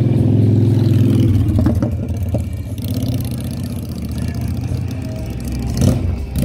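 Yamaha TDM parallel-twin motorcycle engines running, loudest for the first second or so and then settling to a steadier, lower run. A single sharp click comes near the end.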